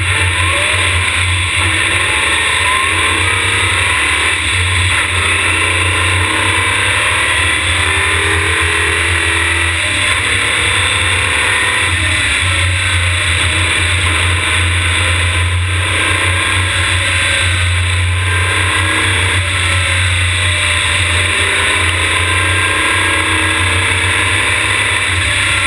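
Open-wheel race car's engine under hard acceleration, its pitch climbing and dropping back again and again as it shifts through the gears, over a steady low rumble.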